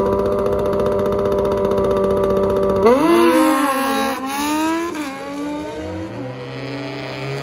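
A race car engine held at a steady high rev. About three seconds in it jumps in loudness, and its revs swing up and down sharply a couple of times as the sound fades away. A second, lower engine note runs steadily near the end.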